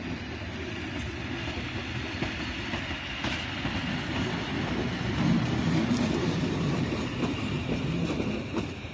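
EU07 electric locomotive running light during shunting, its wheels rumbling and clacking over the rail joints. It grows louder as it passes close, loudest about five to six seconds in.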